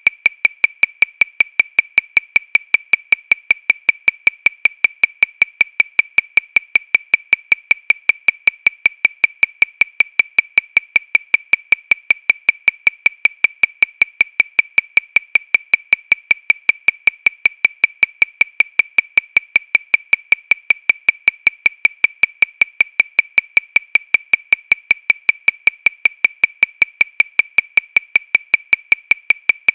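Metronome clicking steadily at 314 beats per minute, a little over five short, high clicks a second, evenly spaced and all equally loud.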